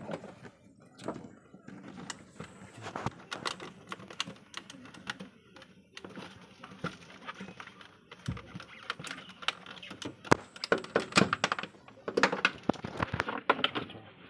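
A car door being worked on by hand: irregular clicks, taps and knocks of plastic trim and metal parts on the bare inner door panel, busier and louder in the second half.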